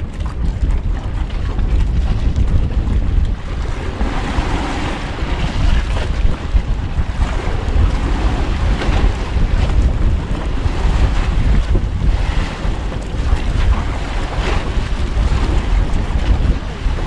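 Wind buffeting the microphone over the wash of sea waves around a small boat: a heavy, steady low rumble with rough, unpitched water noise that swells and eases.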